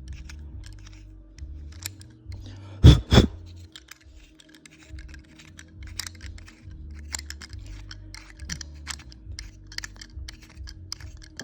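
Light metallic clicks and scrapes of a steel bolt and thread-cutting die being handled, with two sharp knocks close together about three seconds in.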